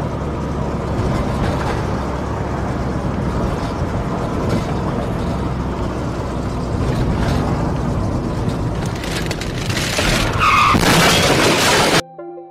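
Road and engine noise of a car driving, heard through a dashcam, steady with a low hum. About ten seconds in it grows louder and a brief high squeal sounds, then the sound cuts off suddenly.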